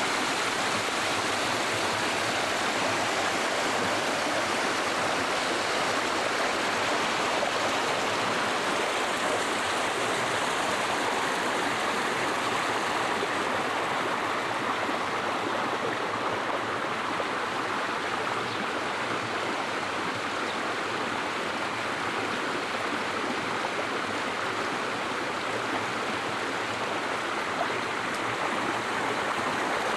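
Storm water rushing, a steady, even wash of noise with no breaks.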